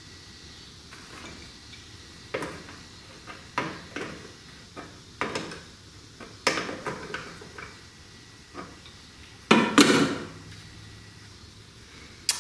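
Irregular metal clicks and clanks of a hand wrench working a bolt on a fan-shroud mounting bracket at the radiator, with a louder ringing metal clatter about ten seconds in.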